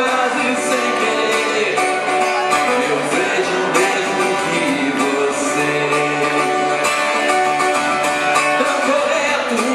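Live solo performance: a man singing while playing guitar, picked up through the venue's sound system.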